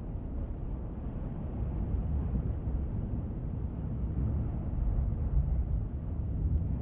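A steady low rumble with no clear pitch, swelling and easing slightly.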